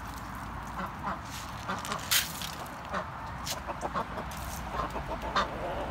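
A flock of brown hens clucking: many short, scattered calls, with a few sharp clicks among them.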